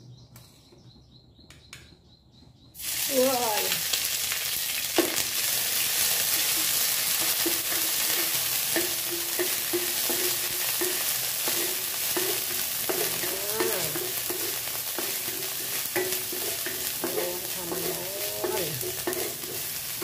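Chilli curry paste hitting hot oil in a honeycomb stainless steel wok about three seconds in, then sizzling loudly and steadily as it is fried and stirred with a wooden spatula.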